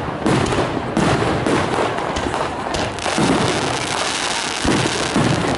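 Fireworks display: aerial shells bursting in a rapid string of bangs over a dense, continuous rumble.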